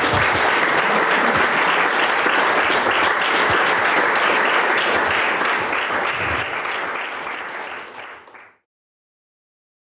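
Audience applauding, a dense steady clapping that fades a little and then cuts off abruptly about eight and a half seconds in.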